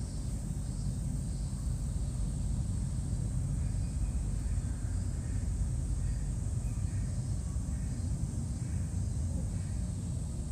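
Steady low outdoor rumble, like distant traffic or wind on the microphone, with a faint high hiss over it; no distinct event stands out.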